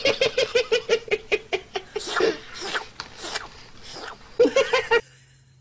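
A person laughing in a quick run of short repeated bursts that breaks off about five seconds in.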